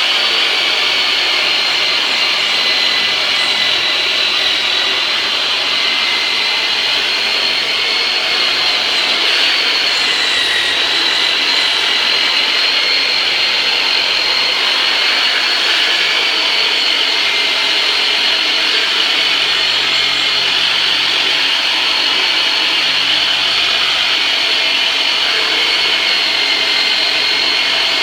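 A chiropractor's motorized percussion massager (the "Turbonator") running steadily on a patient's body, making a continuous high-pitched motor whine and buzz.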